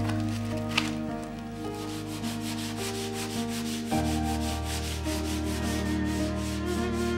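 Sandpaper on a foam hand-sanding pad rubbed back and forth over a wooden furniture surface, in a steady rhythm of rasping strokes, with a single sharp click about a second in. Soft background music with held chords plays underneath.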